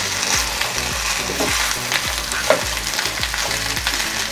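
Sausage pieces, whole shallots and chopped chilies sizzling in a nonstick frying pan, with a spatula stirring and scraping through them over and over.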